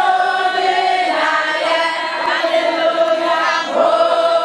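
A group of women singing together in a chant-like hymn, holding long, steady notes.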